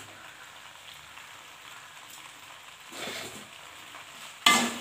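Macaroni in sauce sizzling gently in a metal pot on low heat, a faint steady hiss. Near the end a metal slotted spoon starts stirring the pasta, scraping and clattering loudly against the pot.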